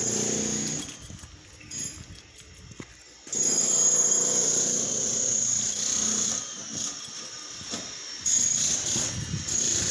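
A motor running in bursts of a few seconds, starting and stopping abruptly, with a steady high whine.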